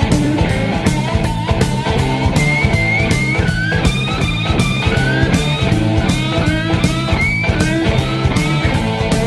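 Rock music with a steady drum beat and a lead guitar playing bent notes.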